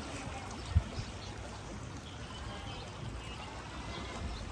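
Water trickling and splashing, with one sharp low thump about a second in.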